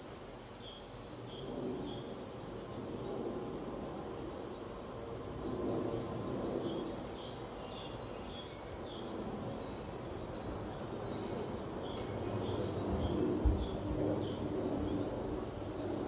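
Small birds singing and chirping, with a quick high descending phrase heard twice, about six seconds apart, over steady low outdoor background noise. There is a brief low thump about halfway through the second half.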